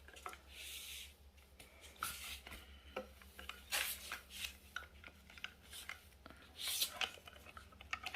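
Handling noises from an electric immersion water heater being picked up and shown: scattered light clicks, taps and short scrapes, with a faint low hum underneath.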